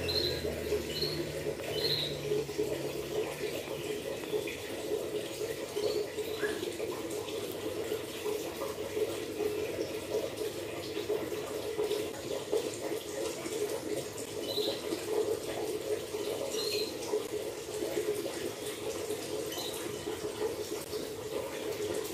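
Steady running, splashing water, with a few faint high chirps near the start and again around the middle.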